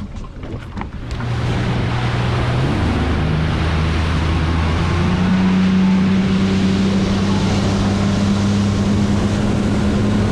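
Yamaha outboard motor driving the boat at speed over open water, its note climbing in steps over the first few seconds and then holding steady as it comes up to cruising revs. Hull slap, rushing water and wind noise run under it.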